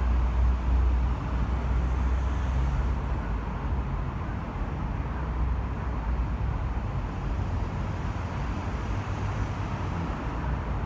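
Steady traffic noise from cars on a multi-lane urban expressway: a continuous deep rumble of engines and tyres, a little louder in the first second or so.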